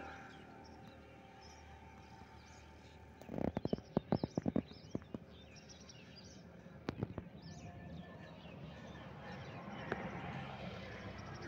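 Quiet rural outdoor ambience with small birds chirping. A quick run of sharp clicks or knocks comes about three seconds in, and a few more follow later.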